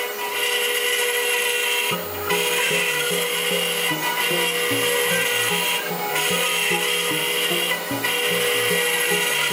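CNC router spindle running with a small router bit cutting into hardwood, a steady whine under a rasping cutting noise that dips briefly about every two seconds.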